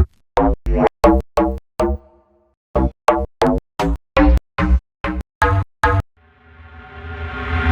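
Repeated 'donk' synth hits: short, punchy pitched bass plucks at about three a second, with a brief pause around two seconds in. From about six seconds in, a rising whoosh builds under the hits.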